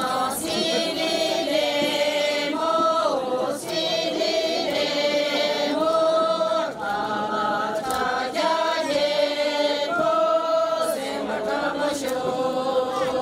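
A group of voices singing a Sherpa shyabru song together in unison, in long held notes that step and slide from one pitch to the next, phrase after phrase.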